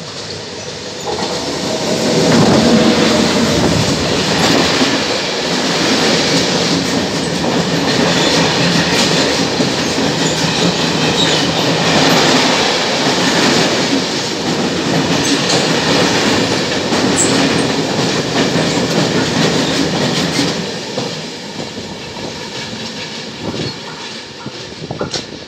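FS E652 'Tigre' electric locomotive running through at speed with a long freight train of covered wagons, the wheels rumbling over the rails. The sound swells as the locomotive arrives about two seconds in, stays loud while the wagons pass, and fades near the end as the train recedes.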